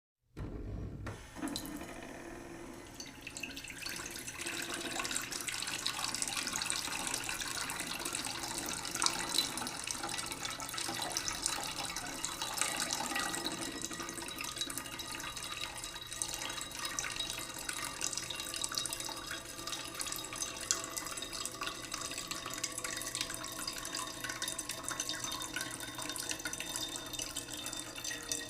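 Water running and splashing steadily, starting abruptly about half a second in.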